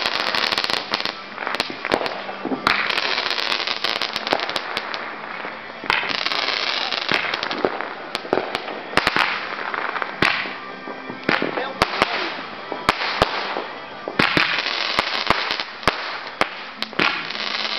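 A rack of Black Cat Magnum Repeater Roman candles firing: sharp pops as the stars are shot out, one after another and unevenly spaced, between stretches of hissing and crackling.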